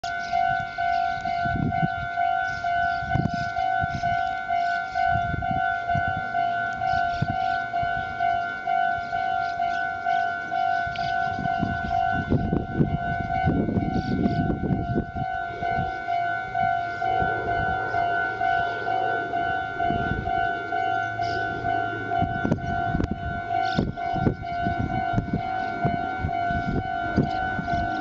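Japanese railroad crossing warning bell ringing its steady, repeating electronic 'kan-kan' tone, the signal that a train is approaching. A low rumbling noise joins it about halfway through.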